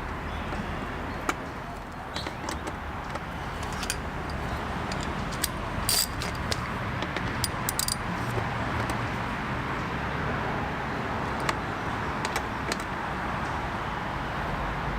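Scattered light metallic clicks and clinks of bolts and hand tools being handled, the sharpest about six and eight seconds in, over a steady low background hum.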